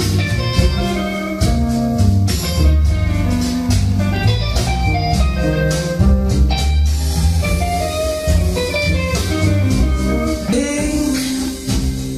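Music with guitar and bass played back from a Schlumberger F500 reel-to-reel tape recorder through a valve amplifier and loudspeakers.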